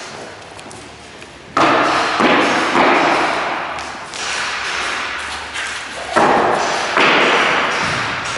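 A series of heavy thuds and knocks, about six in eight seconds, each starting sharply and fading away, from work on a wooden subfloor.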